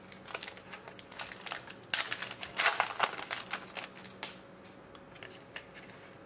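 A trading card pack's wrapper crinkling as it is opened, with cards rustling and clicking as they are handled, busiest from about one to four and a half seconds in.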